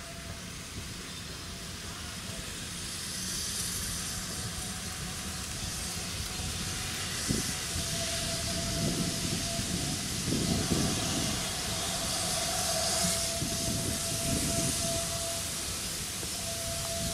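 GWR steam locomotive running tender-first as it approaches with its coaches: steam hissing that swells and fades, with slow, uneven exhaust beats from about seven seconds in as it comes closer.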